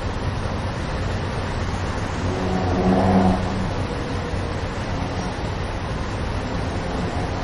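Street traffic: a steady rumble of engines and tyres. One pitched vehicle sound swells to a peak about three seconds in, then fades back into the traffic.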